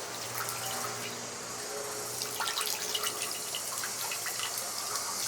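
Water splashing and trickling as a camera is rinsed, with scattered small knocks.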